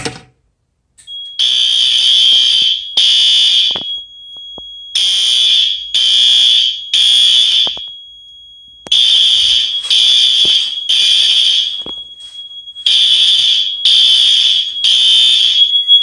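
A fire alarm pull station snaps down, then a System Sensor Spectralert Advance horn sounds loud on its high volume setting. It gives the temporal-3 evacuation code: groups of three blasts, with a pause between groups. A thin steady high tone continues underneath.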